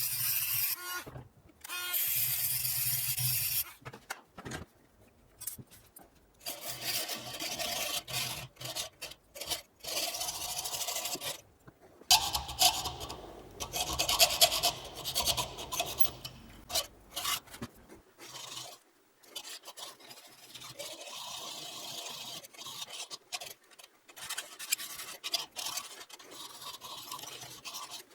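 Hand-tool work on a homemade airsoft cleaning rod: repeated rough scraping strokes in uneven runs, broken by short pauses.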